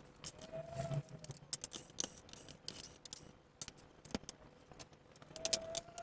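Scattered clicks, taps and light clatter of hands and tools handling a robot vacuum's plastic casing and parts, with a short squeak about a second in and another near the end.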